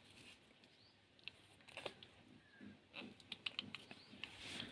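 Faint, irregular soft clicks and smacks from newborn goat kids being put to the doe's teats to suckle, busier in the second half.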